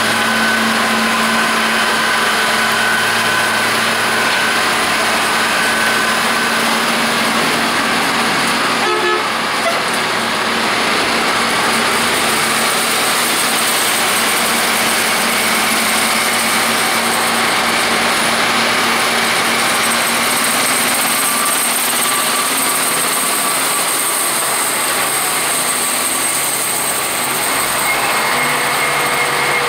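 Heavy snow-removal machinery running steadily: the diesel engines of a rotary snowplow on a wheel loader, throwing snow from its chute into a dump truck, and of a Caterpillar wheel loader working alongside. A brief dip in the noise about nine seconds in.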